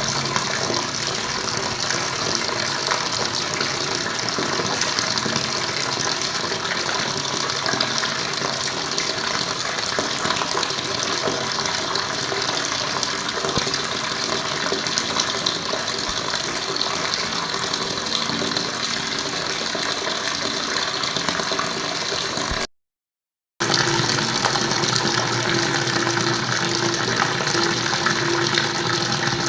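Running water, a steady continuous rush. It cuts out completely for about a second roughly 23 s in, then resumes with a faint steady hum underneath.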